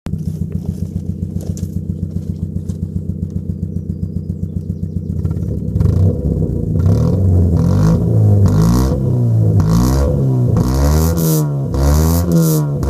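Mk4 Ford Fiesta engine with the muffler deleted, idling with a regular pulsing stumble, then revved up and down in a string of quick throttle blips from about five seconds in. The uneven running is a misfire.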